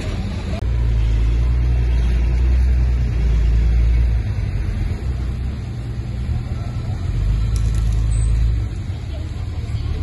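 Old Komatsu bulldozer's diesel engine running with a deep steady drone. The drone swells louder twice: from about a second in for a few seconds, and again near the end, as the engine takes load pushing dirt.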